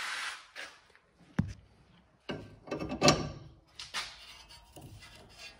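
New sway bar end link for a BMW X3 F25 being handled and fitted against the front strut: one sharp metal click a little over a second in, then a run of knocks and scrapes about halfway through.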